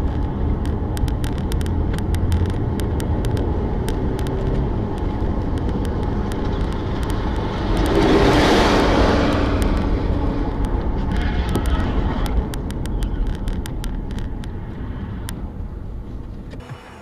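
Car interior road and engine noise at highway speed, a steady rumble with scattered small ticks. A louder rushing swell about eight seconds in, as a large truck goes by close.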